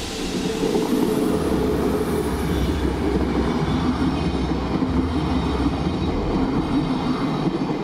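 Red ÖBB electric locomotive and its CityShuttle passenger coaches passing at close range, with steady wheel-on-rail noise from the rolling coaches.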